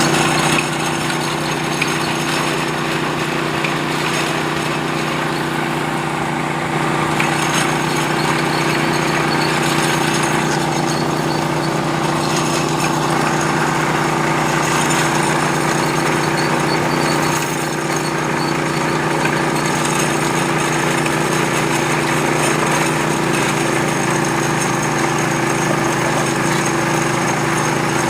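Small engine of a borewell drilling machine running steadily under load, with a constant, even drone.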